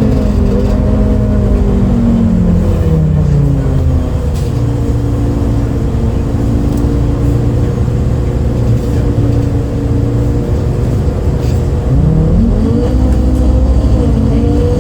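MAN D0836 LOH 63 six-cylinder diesel of a MAN Lion's City A37 bus, heard from inside the bus: the engine note falls over the first few seconds, holds steady and low, then rises sharply as the bus accelerates near the end. The engine had an unusual sound that day, which the recordist had never heard from a MAN.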